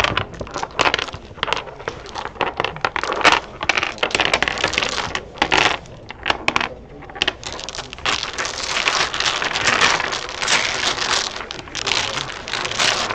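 Plastic dominoes clicking and clattering on a wooden tabletop as they are played and gathered up. From about halfway this turns into a continuous rattle as the tiles are shuffled face down across the table.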